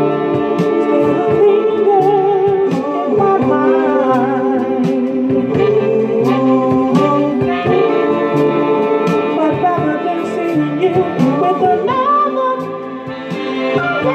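Music: a soul ballad recording with a wavering vocal or horn melody over sustained backing chords and a steady drum beat.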